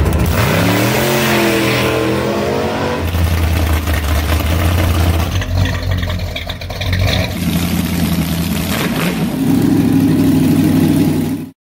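Loud V8 engines revving and running, cut together from several clips. The revs rise in the first couple of seconds, then settle into a steady, lumpy rumble from open exhaust. The sound cuts off abruptly near the end.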